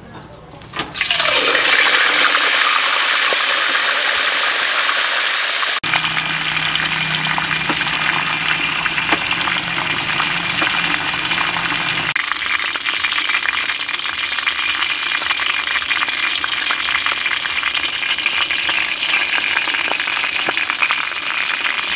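Whole yellowfin tuna deep-frying in hot oil in a large aluminium wok: a loud, steady sizzle that starts as the fish goes into the oil about a second in.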